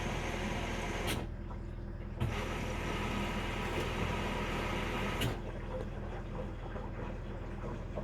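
Samsung washing machine running its bedding cycle: a steady hum under a hiss that cuts off with a click about a second in, comes back with a click about two seconds in, and cuts off again with a click about five seconds in.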